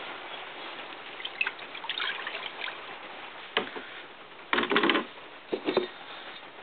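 Rusty steel stove parts lowered into liquid in a plastic bucket: splashing and dribbling, with a sharp knock about three and a half seconds in and the loudest splash about a second later.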